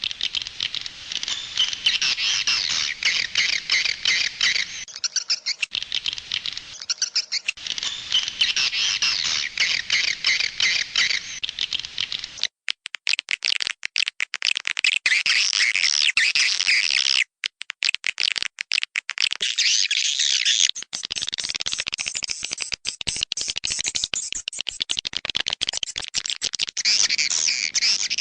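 Swiftlets twittering: a dense, continuous chatter of high chirps from many birds, cutting out briefly twice about midway.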